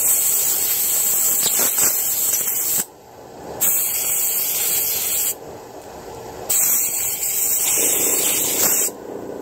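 Aerosol lubricant sprayed in three long hissing bursts into a chainsaw bearing, flushing out the old grease. The bursts each last two to three seconds, with short pauses between them.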